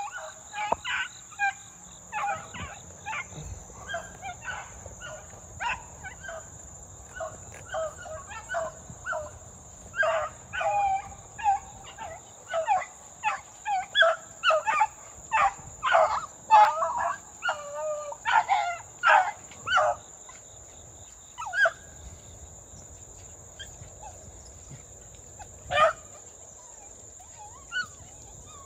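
A pack of beagles giving tongue on a rabbit's trail: short, high barks and yelps from several dogs, scattered at first, coming thick and overlapping for about ten seconds in the middle, then thinning out to a few single barks.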